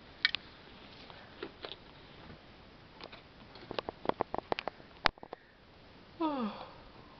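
Scattered light clicks and taps, the sharpest about five seconds in, then a short high voice sliding down in pitch near the end.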